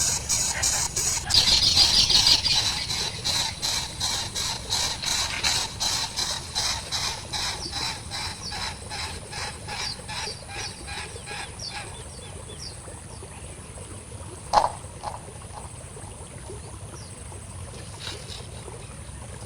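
Nestling birds begging: a rapid series of high, squealing cheeps about three a second, loudest a second or two in and dying away over about ten seconds. A single short sharp sound comes about fourteen seconds in.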